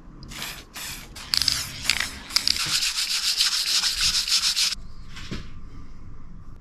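Wood being sanded by hand with sandpaper: a few separate scratchy strokes, then a quick run of rapid back-and-forth strokes that stops abruptly about two-thirds of the way through.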